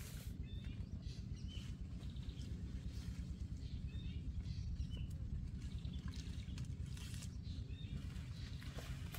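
Small birds chirping briefly, about once a second, over a steady low rumble of wind noise.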